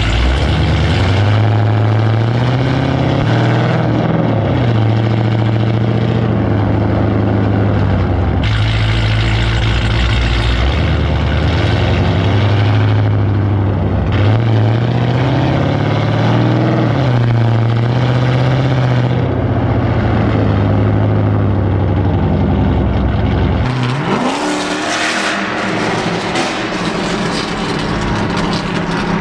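Cammed, straight-piped 6.1-litre Hemi V8 of a Chrysler 300 SRT8 droning loudly while driving, its pitch rising and falling with the throttle. A sharp rising rev comes about 24 seconds in.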